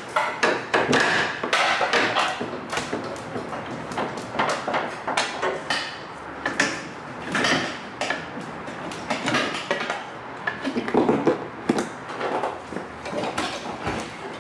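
Hydraulic engine crane being pumped, lifting an engine out of a truck's engine bay: a string of irregular clicks and knocks.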